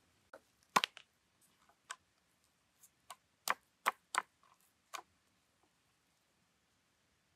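Wood fire crackling: about ten sharp, irregular pops over a very quiet background, the loudest about a second in and several more close together in the middle.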